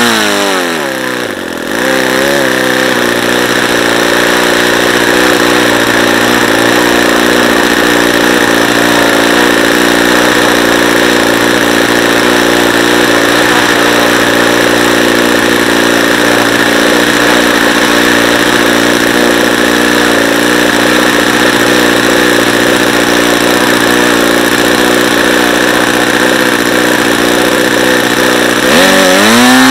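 Saito FA-90TS twin-cylinder four-stroke glow engine turning a 14x6 wooden prop, throttled down from high speed to a low, steady idle that wavers briefly as it settles. About a second before the end it is opened up again and the pitch rises quickly back to high revs.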